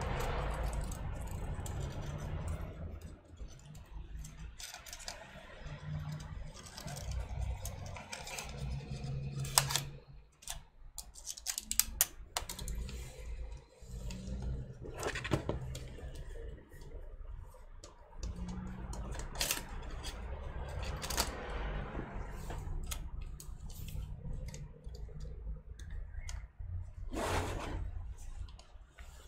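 Scattered small clicks, taps and rattles of small metal and plastic laptop parts and tools being handled while a ThinkPad trackpad is fitted, over a low steady hum.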